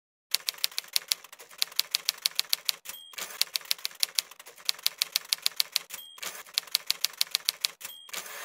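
Typewriter sound effect: a fast run of key strikes. The run is broken three times by a short bell ding at the end of a line, and a carriage-return rush comes at the very end.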